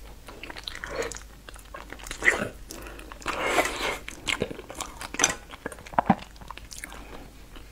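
Close-miked mouth sounds of eating soft noodles and seaweed strands: wet chewing and slurping with irregular smacks and clicks, a few of them sharp.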